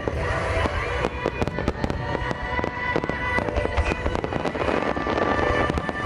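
A rapid barrage of large aerial firework shells bursting, many sharp reports close together, with music playing over loudspeakers underneath.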